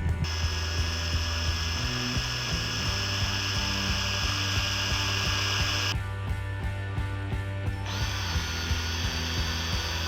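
Power drill running in two long runs, drilling new holes in the masthead for a replacement masthead light: a steady high whine for about six seconds, a short pause, then starting again about eight seconds in. Background music plays underneath.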